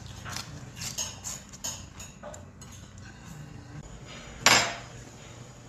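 Small clicks and clinks of tableware and food being handled at a table. About four and a half seconds in comes one loud, sharp knock that rings briefly.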